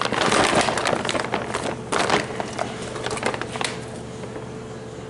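Crinkling and scattered light clicks as a transmission valve body and its parts are handled, loudest in the first second, with another burst about two seconds in and quieter after about four seconds.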